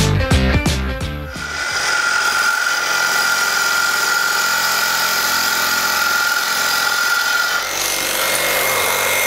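Background music with a beat fades out in the first second or so. Then a Milwaukee Super Sawzall reciprocating saw with a Diablo Steel Demon carbide blade cuts steadily through a 3/8-inch-thick steel I-beam: a loud rasping with a steady high whine. The sound changes a little before the end as the cut finishes and the saw is pulled clear.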